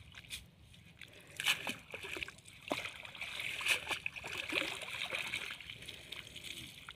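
Water splashing and sloshing as a cast net is hauled in through muddy shallow water and lifted out, water streaming off the mesh. The splashing starts about a second and a half in and dies down near the end.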